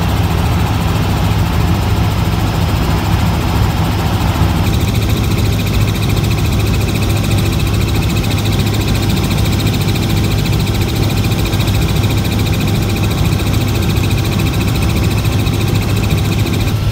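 Helicopter engine and rotor running steadily, heard from inside the cabin as a constant loud low drone. The sound changes slightly about four and a half seconds in.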